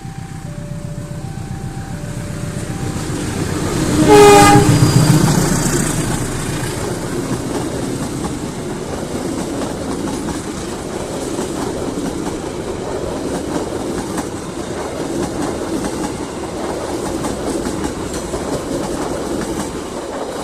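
A two-tone warning chime, typical of a level-crossing alarm, alternates for the first few seconds. Then a CC203 diesel-electric locomotive sounds its horn loudly about four seconds in as it passes, followed by the steady rumble and clickety-clack of the train's coaches going by.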